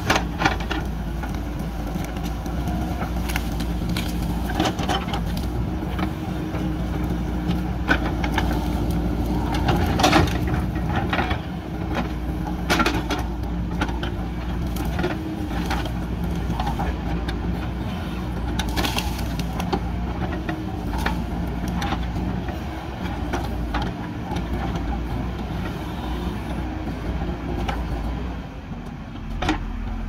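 JCB 3DX backhoe loader's diesel engine running steadily under load, with scattered sharp cracks and knocks as the backhoe bucket works through cut branches and roots.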